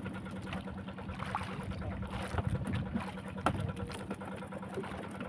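A fishing boat's onboard motor humming steadily, with water washing against the hull and a few small knocks and splashes as a hand line is worked over the gunwale.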